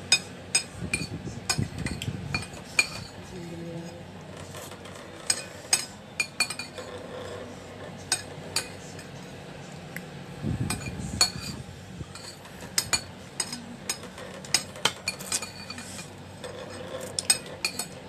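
A metal spoon and fork clinking and scraping on a plate while eating, in sharp irregular clinks, often several in quick succession. Two short spells of low rumble come near the start and about ten seconds in.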